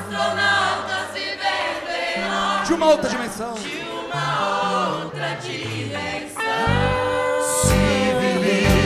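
A congregation and a male worship leader singing a Portuguese gospel song together, over a stepping bass line. A long held note begins about two-thirds of the way in.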